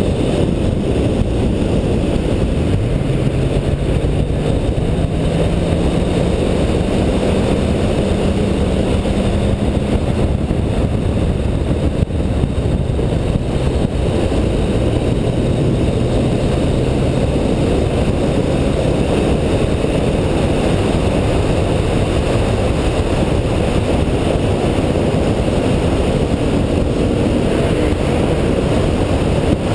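Car engine pulling hard at speed, its note climbing under acceleration a few times, over steady wind and road noise.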